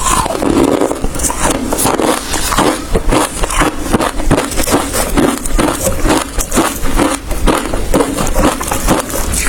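Hard ice being bitten and chewed: a steady run of sharp crunches, several a second.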